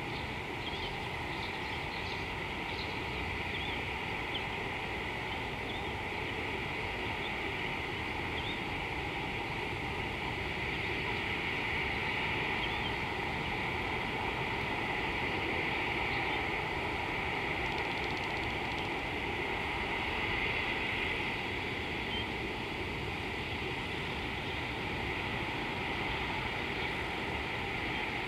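Steady outdoor background noise, an even hiss strongest in the upper middle range, with a few faint high chirps in the first few seconds.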